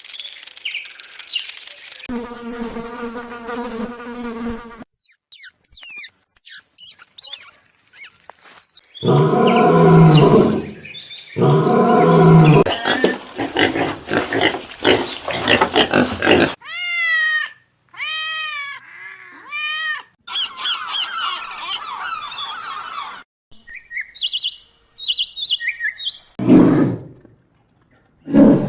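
A string of different animal calls, each cut off sharply before the next. It includes a held pitched call, high whistle-like glides, two loud low roaring calls about ten seconds in, a run of repeated arching calls and high chirps.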